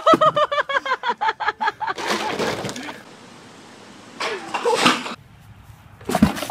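Ice water dumped from a bucket splashes over a person, with rapid high-pitched laughter through the first two seconds. A second bucket of ice water splashes down with a cry about four and a half seconds in.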